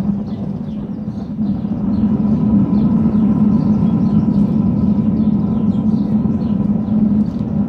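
Steady low roar of a homemade forced-air burner furnace running with its lid on, heating up to melt brass. Faint high chirps, like small birds, repeat over it.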